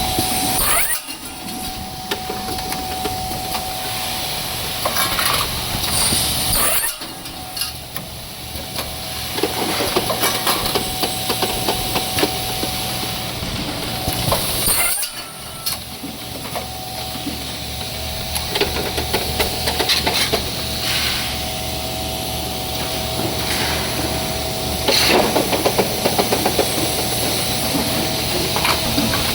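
CNC 45-degree cutting machine running: a steady motor hum and whine, with repeated stretches of saw-cutting noise and clicks. The sound drops out briefly three times, about 1, 7 and 15 seconds in.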